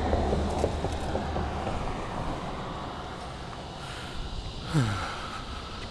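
Outdoor ambience of a road bridge: steady wind on the microphone and traffic noise. About five seconds in comes a short falling sigh or grunt from a person.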